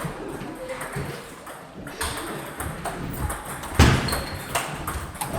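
Table tennis ball being hit back and forth in a rally, a series of sharp clicks off the rubber of the bats and the table, with the loudest hit a little under four seconds in and a brief high squeak just after it.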